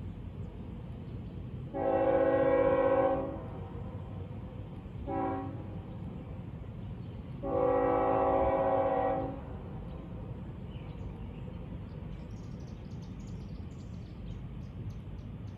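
Train horn (whistle) sounding three blasts: a long one, a short one, then another long one, over a steady low rumble.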